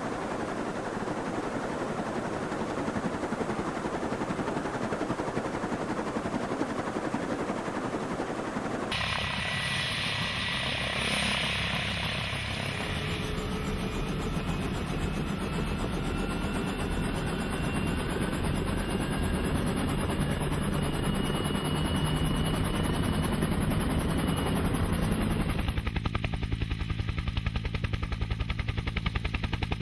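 Bell UH-1 Huey helicopter running, its rotor beating low and rhythmically over the turbine engine. The sound changes abruptly about nine seconds in and again near the end, with a faint rising whine in between.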